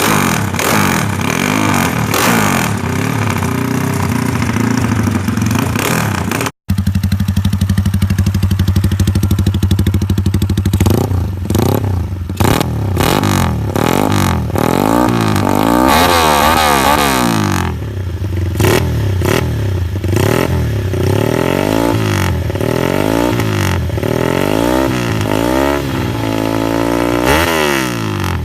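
Small motorcycles with loud modified aftermarket exhausts, revved hard. After a brief cut about six and a half seconds in, one bike holds a steady note, then from about eleven seconds on its engine note rises and falls over and over in quick throttle blips.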